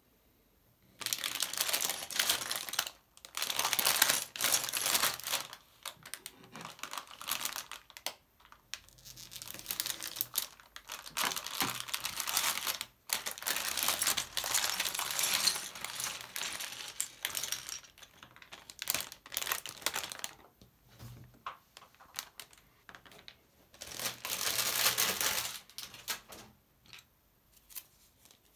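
Thin plastic LEGO polybag crinkling in repeated bursts of crackle as hands handle and tear it open.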